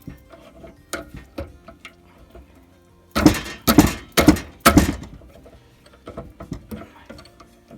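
Metal tools and parts being handled on the workbench: scattered light knocks and clinks, then four loud clattering scrapes about half a second apart about three seconds in, with faint music from a radio behind.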